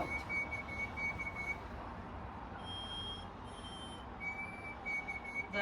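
A steady high-pitched tone, broken into short dashes, stops partway through and comes back about four seconds in. Two brief higher tones sound in the gap, and a few soft clicks come near the start.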